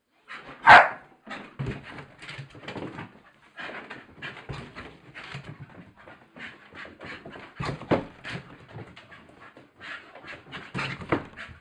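Staffordshire bull terrier playing excitedly on the stairs: a quick, irregular run of short dog sounds, the loudest and sharpest about a second in.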